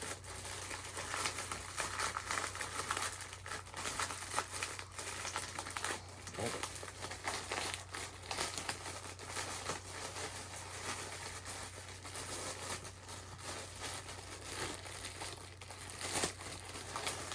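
Packaging crinkling and rustling as it is handled and opened, with scattered small clicks, over a steady low hum.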